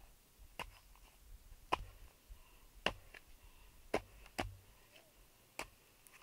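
A series of sharp knocks, six in about six seconds and unevenly spaced.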